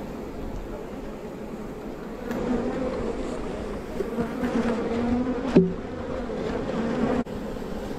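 Honeybees from a disturbed swarm buzzing around the microphone: a steady hum of many bees, louder from about two seconds in as single bees fly close past with a wavering pitch. A sharp knock about five and a half seconds in.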